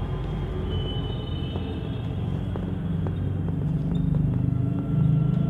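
Low, steady mechanical rumble with a few faint steady whining tones above it, growing slightly louder in the second half.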